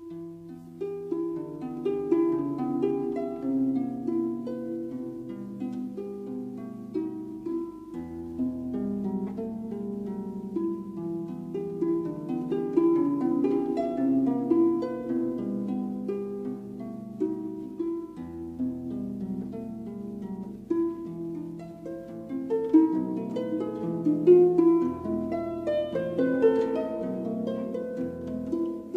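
Background music: a melody of plucked string notes over sustained low notes that change every few seconds.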